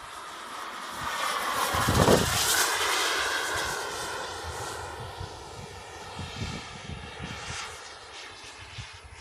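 Jetcat P160 turbine of a Boomerang Taurus RC jet on a fast pass: its whine and rush swell to a peak about two seconds in, the pitch dropping as it goes by, then fade to a steadier distant whine.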